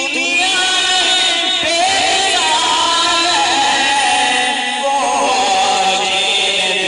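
A man sings a devotional song through a microphone and PA, in a slow melody of long held notes that waver and glide between pitches.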